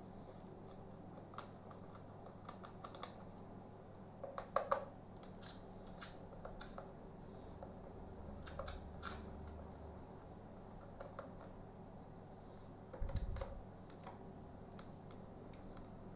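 Irregular sharp clicks and taps of a small Phillips screwdriver and loose screws against a laptop's plastic case as its bottom screws are taken out, with a dull thump late on.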